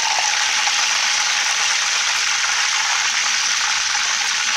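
Hot oil sizzling steadily in a wok around a whole fish frying in it.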